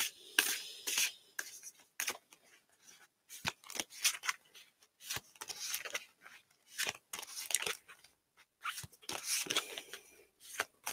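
Tarot cards being shuffled and handled: short papery rustles and flicks of card stock with a few sharp taps, coming in short spells with brief gaps between.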